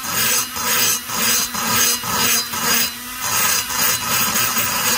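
Hand-held rotary grinder running steadily with a small bit grinding inside the intake port of an Echo CS-670 chainsaw's aluminium cylinder, worked toward the port's edge. The grinding rises and falls in short strokes about twice a second over the tool's steady motor hum.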